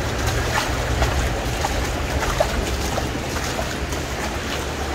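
Fast-flowing floodwater rushing steadily along a street, with a few short splashes through it.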